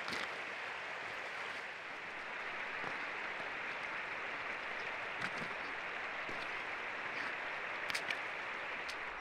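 Steady rush of a clear river running over a gravel bed, with a few faint clicks.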